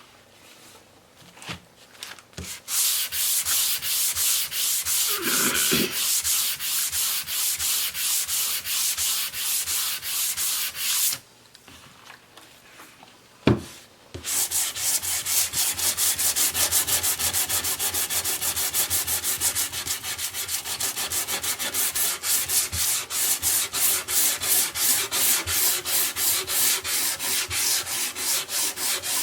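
Wood being sanded by hand with rapid back-and-forth strokes, several a second. The strokes pause for a few seconds around a single sharp knock, then start again.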